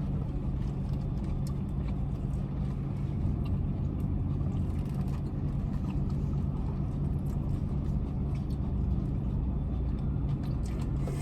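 Steady low hum of a car's engine running, heard from inside the cabin.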